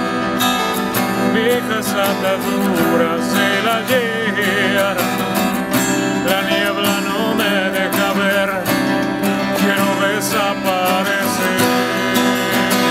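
Two acoustic guitars playing a Chilean folk song, strummed and picked, with a wordless vocal line wavering above them.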